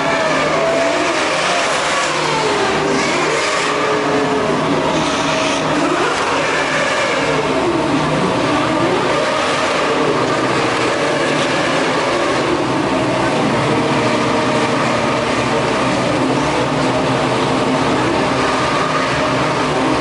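Many 2013 Formula 1 cars' 2.4-litre V8 engines running together on the starting grid, held at high revs, their pitch repeatedly dipping and rising again as the drivers work the throttle.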